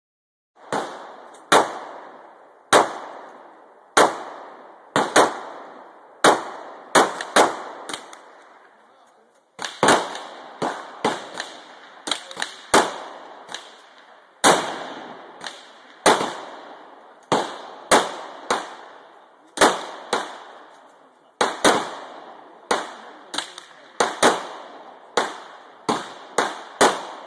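A long string of gunshots, sharp cracks about one to two a second with uneven loudness, each trailing off in echo, with a brief pause about a third of the way in.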